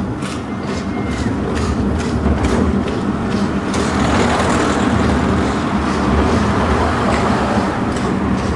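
Horse-drawn tram rolling along its street track: a steady rumble from the wheels on the rails, with sharp clicks and knocks scattered through it. It gets louder about four seconds in.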